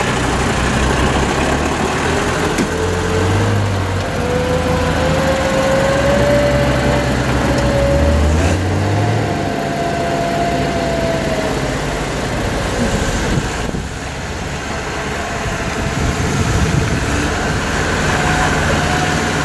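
Mercedes Unimog 421's 2.4-litre four-cylinder diesel engine running under load as the truck crawls slowly through muddy off-road ruts, steady throughout, with a whine that slowly rises in pitch a few seconds in and a higher whine near the middle.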